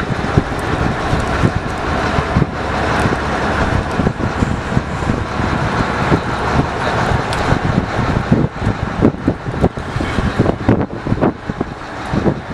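A fishing boat's engine running steadily, with wind buffeting the microphone in irregular gusts that grow more frequent in the second half.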